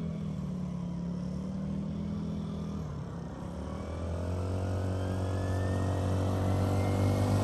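Small youth ATV engine running. Its note rises in pitch and grows louder from about halfway through as the quad speeds up and comes closer.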